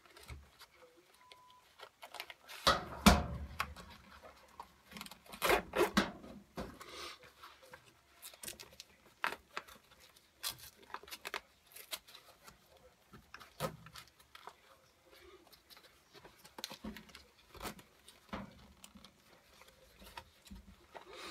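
Handling noise of a nylon trauma kit pouch being repacked by hand: scattered rustles, clicks and light knocks as items go back in, loudest about three and six seconds in.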